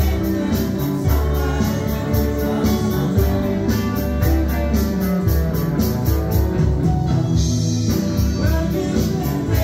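Live band playing together: electric guitars, electronic keyboard and a drum kit with regular cymbal strokes, with a voice singing over them.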